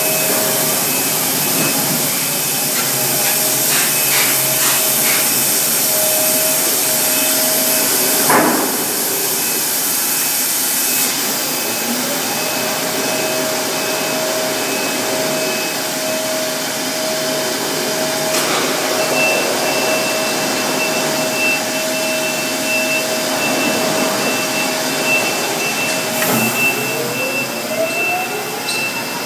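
Milnor continuous batch (tunnel) washer line running, a steady loud hiss and hum with thin whining tones over it. There is a single knock about eight seconds in, and a rising whine near the end.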